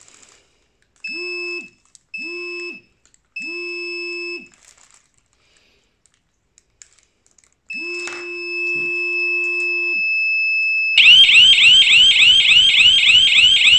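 CarProTec GSM car alarm beeping three short times as it arms, then sounding a longer steady tone, then its external siren going off with a rapid, high warbling wail about five sweeps a second, loud enough to hurt the ears.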